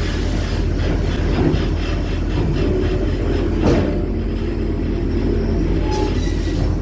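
A large passenger ferry's engines running under way, heard on board as a deep steady rumble with rattling from the vibrating ship, and a single knock a little over halfway through.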